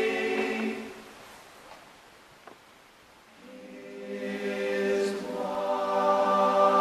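Mixed choir of about ten voices singing a held chord that dies away about a second in. After a quiet pause of about two and a half seconds, broken by one faint click, the choir comes back in on sustained chords that swell.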